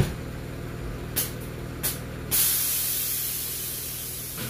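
Air Lift 3P air suspension dumping air as the car airs out: two short hisses, then a long hiss starting about two seconds in that slowly fades as the bags deflate and the car drops. A steady low hum runs underneath.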